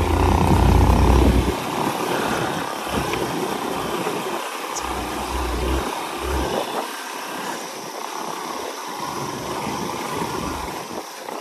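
Motorcycle engine running at low speed on a rough off-road track, with a low rumble that comes and goes, strongest in the first second or so.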